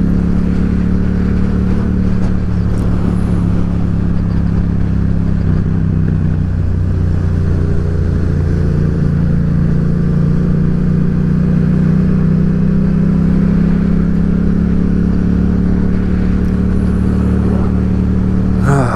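Yamaha XSR700's parallel-twin engine running steadily at cruising speed, its pitch easing down and up slightly a few times with small changes in throttle, heard from the rider's own bike.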